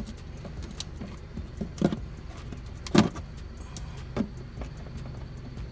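Plastic push-pin clips on a car's splash guard being pried and popped out with a screwdriver: a few sharp clicks and pops, the loudest about three seconds in, over a steady low hum.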